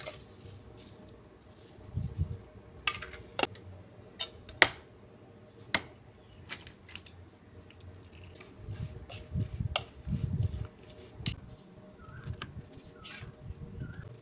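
A metal spoon clicking and tapping against ceramic bowls in scattered sharp taps, with soft low rustling as raw shrimp, herbs and egg are stirred together and scooped out.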